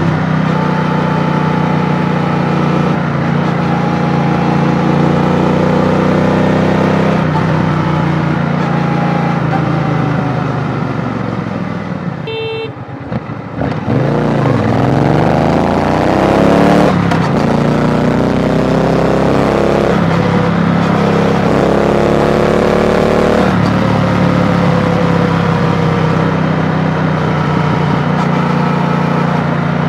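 Triumph Bonneville T120's parallel-twin engine heard from the saddle, pulling up through the gears with its pitch rising and falling back at each shift. About a third of the way in it slows down nearly to idle, then accelerates hard through three gear changes and settles into a steady cruise.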